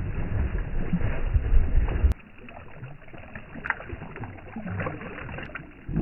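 Ducks bathing in a shallow water tank, beating the water with their wings: loud splashing for about two seconds, then it suddenly drops to quieter sloshing and scattered drips.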